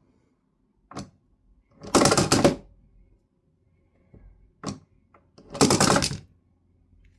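Foley sound effect: a short click, then about a second later a loud rattling clatter of quick clicks. The click-and-clatter pair comes twice.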